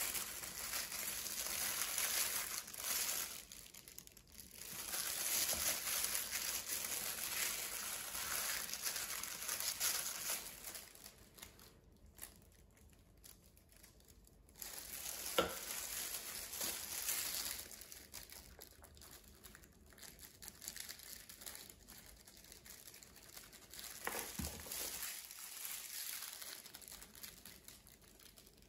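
Disposable plastic food-prep gloves crinkling as hands flip raw turkey cutlets and rub seasoning into them. It comes in several stretches with quiet pauses between, and there is one sharp click about halfway through.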